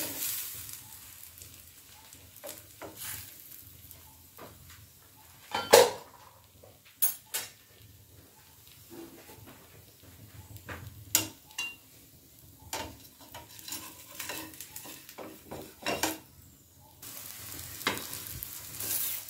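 Garlic paratha batter frying in ghee on a nonstick pan, with a faint sizzle and scattered sharp clicks and scrapes of a spatula against the pan, the loudest about six seconds in. From about seventeen seconds the sizzle grows louder as the paratha is turned over.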